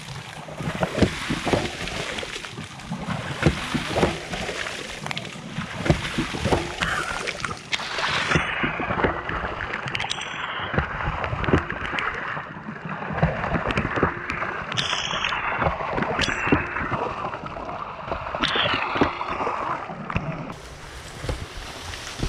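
Water splashing and gurgling, with many sharp knocks at irregular spacing.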